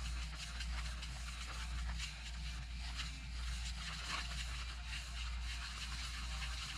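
Magic eraser (melamine foam) rubbed over a plastic disc golf disc, faint repeated scrubbing strokes, over a steady low hum.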